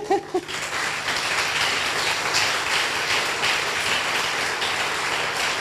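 Audience applauding, the clapping coming in about half a second in and holding steady.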